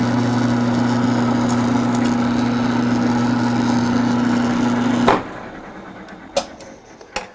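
Bench-top mill-drill running with an end mill cutting into a steel truck flywheel: a steady motor hum under a rough cutting noise. About five seconds in, the machine is shut off and the sound falls away, followed by a few faint clicks.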